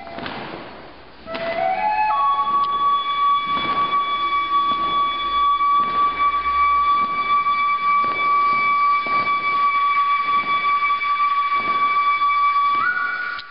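Music led by a flute-like wind instrument: a short rising run of notes, then one high note held steady for about ten seconds, stepping up near the end, over a soft beat a little more than once a second.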